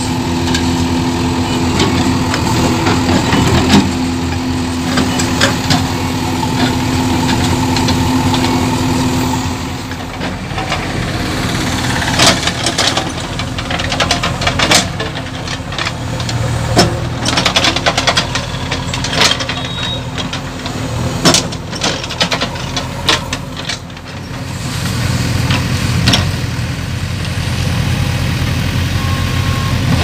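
JCB 3DX backhoe loader's diesel engine running, with a steady whine over it for the first nine seconds or so that stops suddenly. After that, the backhoe bucket tears into brush and earth, and many sharp snaps and cracks of breaking scrub are heard over the engine.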